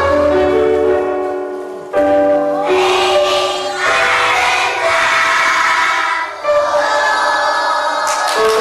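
A group of children singing a song together over instrumental accompaniment, in long held notes.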